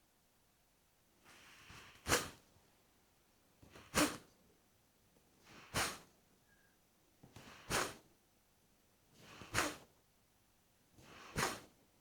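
Kapalbhati breathing through the right nostril: six sharp, forceful exhalations through the nose about every two seconds, each led by a softer, quieter breath.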